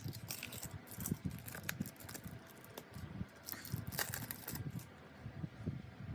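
Light handling noise: scattered small clicks, taps and rustles of packaging being unwrapped and handled.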